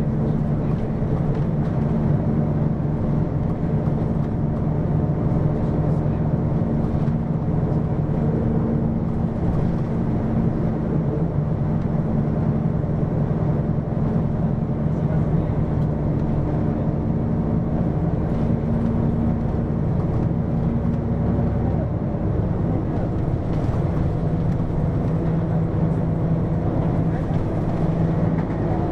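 Hino QKG-LV234N3 city bus under way, its engine and drivetrain running steadily as a deep drone. The engine note changes about 22 seconds in.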